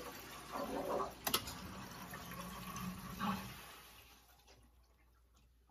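Water flowing through the supply pipe into an electric water heater tank as the shut-off valve is reopened and the tank repressurizes, a hiss that fades away over about four seconds. A single sharp click about a second in.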